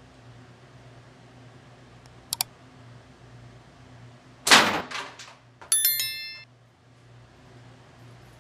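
A slingshot with flat rubber bands fired at a metal target: a couple of small clicks about two seconds in, then a sharp crack about four and a half seconds in, followed about a second later by a short metallic ringing clang.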